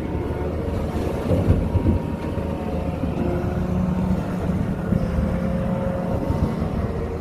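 Doosan hydraulic excavator's diesel engine running under load, with a few short knocks about a second and a half in.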